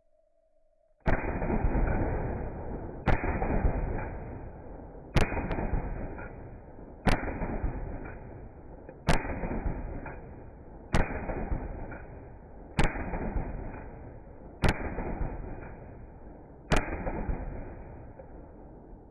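Mossberg 930 SPX semi-automatic 12-gauge shotgun fired nine times with low-brass target loads, about one shot every two seconds, each shot trailing off slowly before the next.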